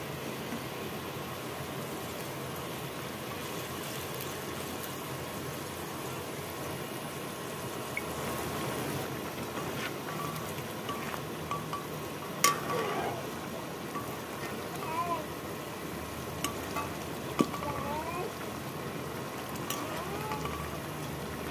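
Small-fish and potato curry bubbling steadily in an aluminium kadai, stirred with a metal ladle that clinks sharply against the pan twice in the second half.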